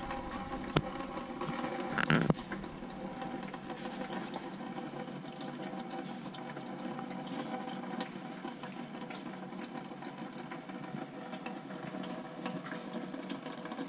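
Gear oil draining off the loosened rear differential cover, trickling and splattering in thin streams into a drain pan below, over a steady hum. A brief louder noise comes about two seconds in.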